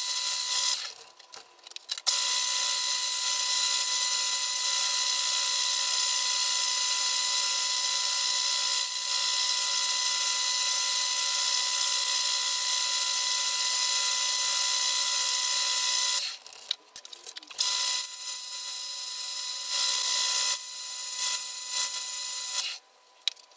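A metal lathe spins a wooden handle blank while a hand-held turning chisel cuts it, giving a steady hiss of wood shavings over the lathe's constant whine. The sound breaks off briefly about a second in and again around two-thirds of the way through, then starts and stops a few times near the end.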